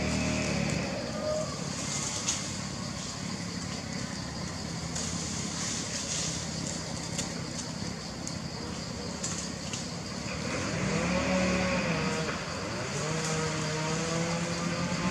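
A motor engine running in the background, its pitch rising and falling twice past the middle, over a steady high buzz.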